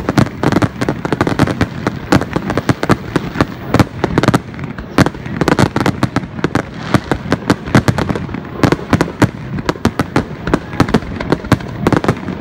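Aerial fireworks shells bursting in a rapid barrage: a dense, irregular run of bangs, several a second, with no pause.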